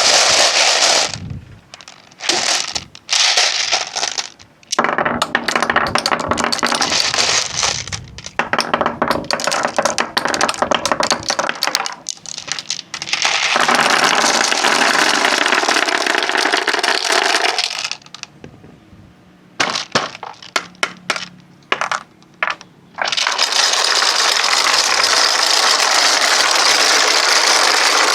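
Marbles rolling and clattering along a wooden marble-run track. There are sharp clicks of marbles knocking at first, then long runs of continuous rolling rumble, broken by a short spell of scattered clicks before the rolling picks up again.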